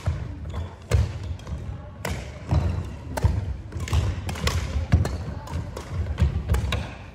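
Badminton play: sharp racket strikes on the shuttlecock mixed with thudding footsteps on a sprung wooden sports floor, coming irregularly several times a second, echoing in a large hall.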